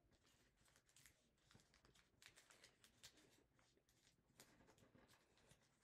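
Faint, scattered soft ticks and crinkles of a sheet of origami paper being folded and creased by hand, over near-silent room tone.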